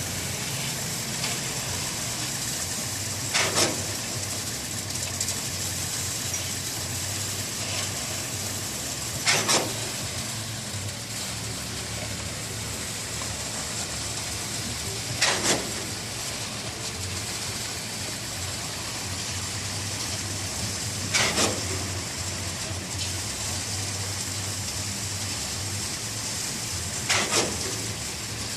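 A steady background noise, with a sharp double knock repeating evenly about every six seconds, five times in all.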